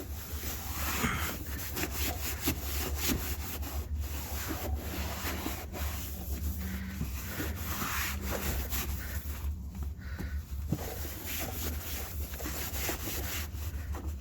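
A cloth wiping and rubbing over a scooter's floorboard, damp with spray cleaner, in repeated irregular strokes, over a steady low hum.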